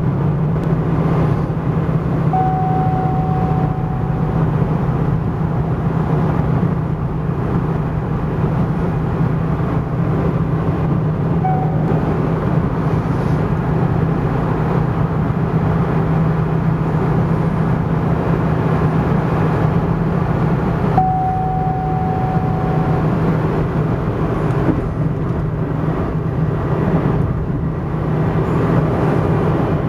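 Freshly rebuilt 1999 Cadillac Northstar V8 running steadily at an even speed.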